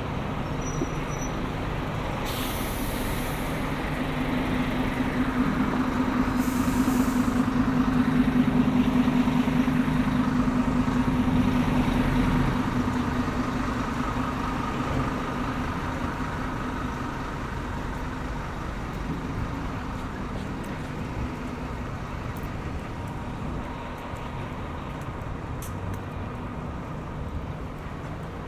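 A heavy diesel vehicle's engine running close by in street traffic, swelling to its loudest about eight seconds in and then fading away. There are two short air-brake hisses in the first seven seconds.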